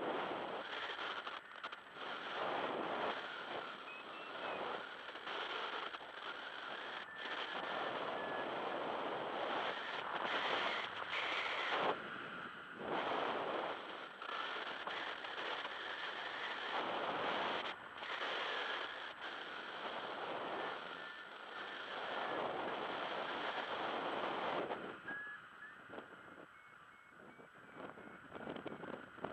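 Airflow rushing over the camera microphone of a paraglider in flight, gusting up and down every few seconds and easing off near the end.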